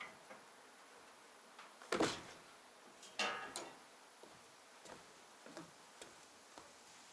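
Scattered knocks and clicks of handling: a sharp knock about two seconds in, a short rattling cluster just after three seconds, then a few faint ticks.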